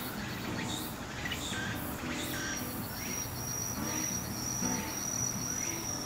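Dusk chorus of katydid-type insects: a rapid pulsed trill throughout, joined about two seconds in by a steady high-pitched trill that grows louder.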